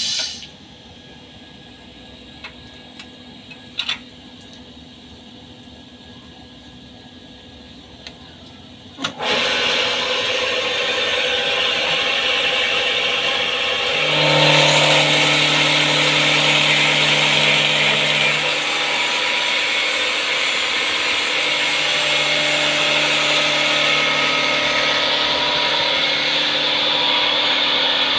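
Automatic wood lathe: a few clicks over a low background, then about nine seconds in the cutter bites into the wood with a loud, steady rasping noise. It grows louder a few seconds later as a low machine hum joins it.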